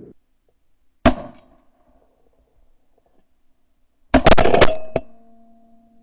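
Two shotgun blasts about three seconds apart, fired at a passing flock of ring-necked ducks. The second blast is longer and is followed by a faint steady hum.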